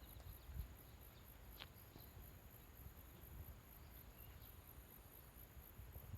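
Near silence with faint insects chirping: a high pulse repeating about three times a second over a steady high hum. One faint click comes about a second and a half in.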